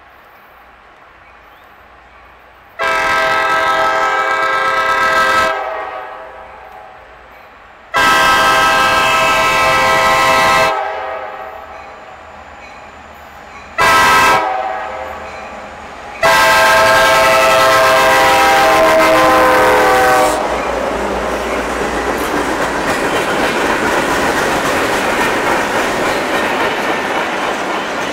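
Diesel freight locomotive's air horn sounding the grade-crossing signal: two long blasts, a short one, and a final long blast, each a chord of several tones. Then the freight cars roll past with a steady rumble and clatter of wheels on rail.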